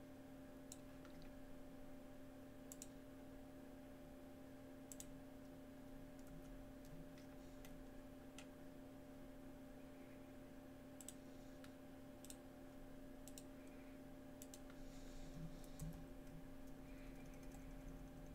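Near silence: a steady low electrical hum with scattered faint clicks of a computer mouse, a dozen or so, spaced irregularly.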